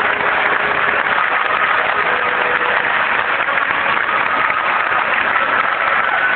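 Large theatre audience applauding, a dense, even clapping with no breaks.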